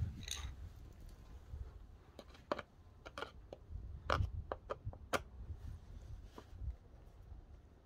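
A few scattered light clicks and knocks over an uneven low rumble, the sharpest two about four and five seconds in.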